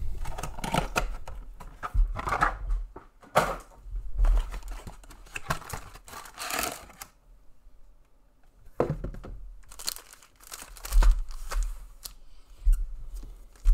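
Trading card box and pack wrappers being torn open and crinkled by hand, in a string of short rips and rustles with a pause of about two seconds midway, and a few soft knocks of handling.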